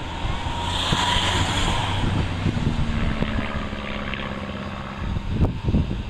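Propeller engine of a Van's RV light aerobatic aircraft flying overhead, a steady engine drone. The engine tones drop away about five seconds in.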